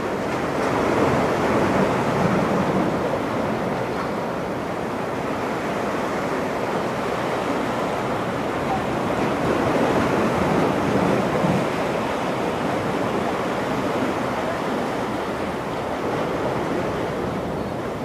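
Ocean surf washing and breaking steadily, with some wind on the microphone; it swells louder about a second in and again around ten seconds in.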